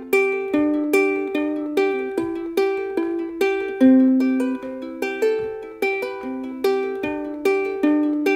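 Ukulele music: plucked notes at an even pace, about two or three a second, each ringing briefly and fading before the next.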